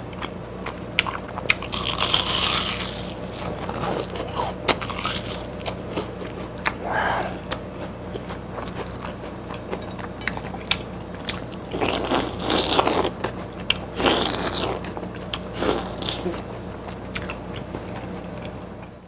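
Close-miked eating of deep-fried shrimp toast (menbosha): the crisp fried bread crunches loudly in several bites, with chewing and small clicks between them.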